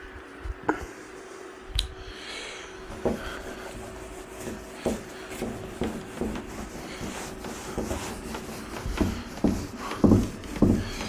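Whiteboard duster wiping a whiteboard in repeated rubbing strokes, with soft knocks.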